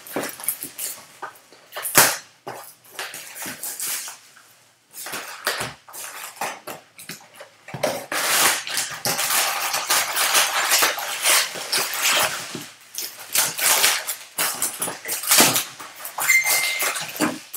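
Plastic shrink wrap crinkling and tearing off a cardboard trading-card box, then the box being opened and plastic-wrapped card packs pulled out, with a thick stretch of crinkling in the middle and many sharp taps and rustles.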